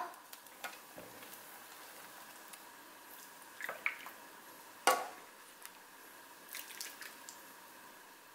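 Soup being ladled from a pot into a ceramic bowl: faint pouring and dripping of broth with rice cake slices, and a few light knocks of the plastic ladle against the bowl, the sharpest about five seconds in.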